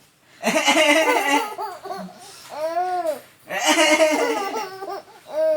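Baby laughing hard in two long bursts about three seconds apart, with shorter vocal squeals that rise and fall in pitch between and after them. The laughter is set off by her father's coughing.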